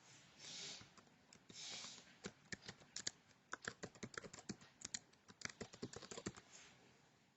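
Computer keyboard being typed on, a faint irregular run of key clicks lasting about four seconds as passwords are entered, after two soft hisses at the start.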